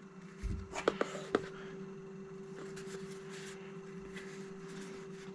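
Hardcase LiPo battery packs being handled: a few light clicks and knocks in the first second and a half, then quiet rustling. A steady faint hum runs underneath.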